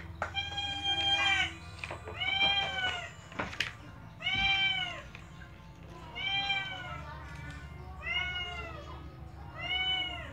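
A cat meowing over and over: six drawn-out meows, each rising and falling in pitch, about two seconds apart.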